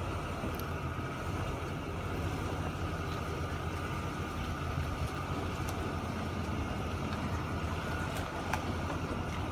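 SUV engine running at low speed as it reverses a boat trailer slowly down a ramp: a steady low hum with a few faint clicks.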